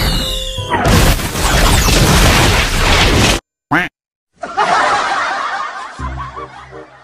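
Edited mix of music and sound effects: a loud, noisy stretch that cuts off suddenly about three and a half seconds in, a short gliding blip in the silence, then noisy sound again with a low pulsing rhythm near the end.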